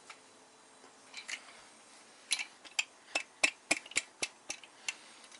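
A run of about a dozen sharp metallic clicks and knocks, roughly three or four a second, from hand tools working on the VR6 engine's bottom end during teardown. A couple of softer clicks come about a second in.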